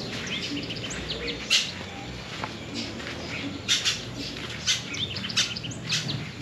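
Birds chirping in short, high calls, with a few louder sharp ones about a second and a half in and again several times in the second half.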